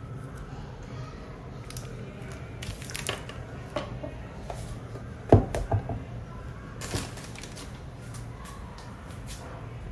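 Unboxing handling noise: a clear plastic sleeve crinkling as it is slid off a pair of sunglasses, then sharp knocks as things are set down on a wooden desk, the loudest about five seconds in, followed by a short crackle of plastic near seven seconds. A low steady hum runs underneath.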